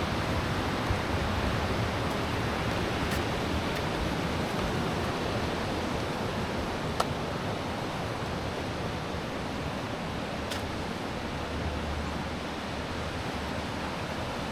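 Steady rushing noise with no pitch, strongest in the low end, with a few faint sharp clicks scattered through it.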